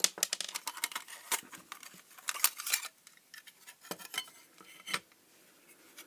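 A small screwdriver working screws out of a thin metal projector case, with irregular metallic clicks and scrapes as the screws and case parts are handled, thickest in the first second and again about two to three seconds in.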